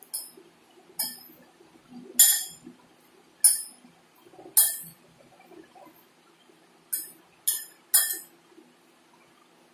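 A metal spoon clinking against a ceramic bowl while a chopped-vegetable salad is mixed: about eight short, ringing clinks at irregular intervals.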